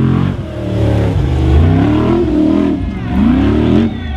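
Formula Offroad buggy's engine revving hard under load on a steep sand climb, its pitch rising and falling in about three surges.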